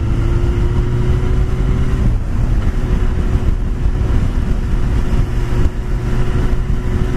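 Motorcycle engine running steadily while the bike is ridden, under heavy low wind and road rumble. The engine note drops slightly about two seconds in, then holds steady again.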